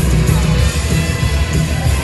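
Loud music with a heavy, pulsing low end.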